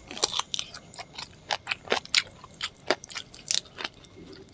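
Close-miked chewing and lip smacking while eating curry chicken: an irregular run of short, wet clicks and smacks.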